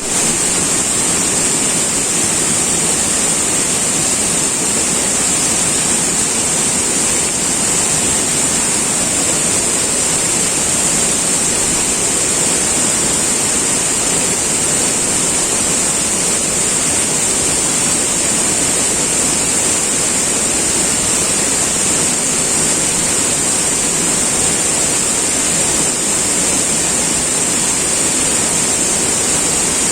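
River water flowing and rushing steadily, an even, unbroken wash with a strong high hiss on top.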